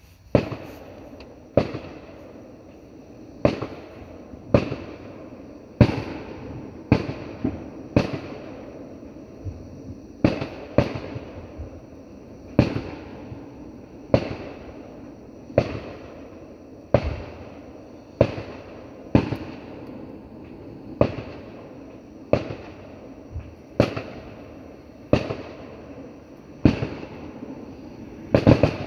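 Fireworks going off in a long series of sharp bangs, roughly one every second or so, each fading away briefly, over a steady background noise.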